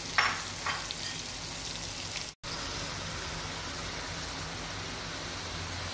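Pot of stuffed bitter gourds in tomato gravy sizzling steadily on high heat, half a glass of water just added to it. The sound drops out for a moment about two and a half seconds in.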